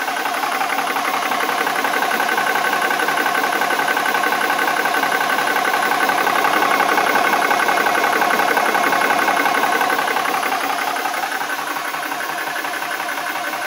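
Venturi Nomad II portable high-pressure air compressor running steadily while charging an air rifle, its pump and cooling fan giving a continuous hum with a fast even pulse. It grows louder for several seconds in the middle, then eases off.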